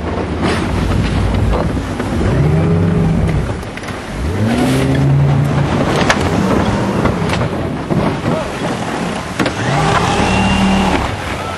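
Boat engines revving up and down over and over, the pitch rising, holding and falling every couple of seconds, with a few short sharp knocks.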